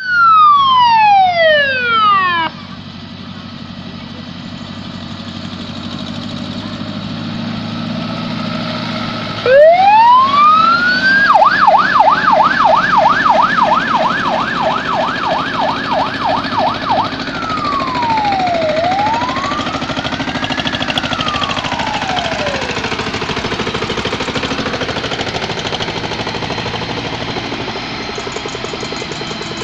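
Fire engine siren: a wail falling away at the start, then rising again about ten seconds in into a rapid yelp of about three or four sweeps a second, then two slow rising-and-falling wails before it stops. Tractor engines run underneath throughout.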